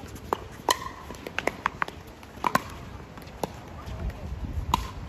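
Pickleball paddles striking a plastic pickleball during rallies, a string of sharp, irregular pops, some from the neighbouring courts.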